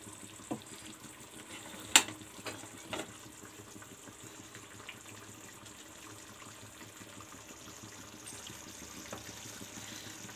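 Metal clicks of an aluminium pressure cooker's lid being handled and opened, the loudest a single sharp click about two seconds in, over a faint steady hiss.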